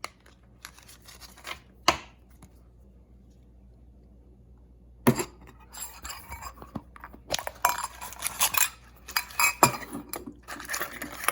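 Metal Poké Ball collector tins and a metal coin being handled: a couple of sharp clicks in the first two seconds, then a busy run of clinks and rattles from about halfway on.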